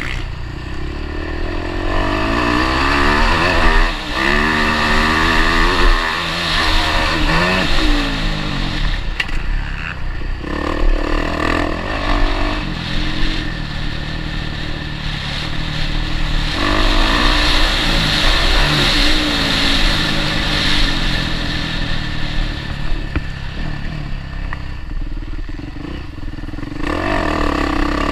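Motocross bike engine heard from on board the bike, revving hard with its pitch rising again and again as the throttle is opened, then dropping back when the rider shuts off.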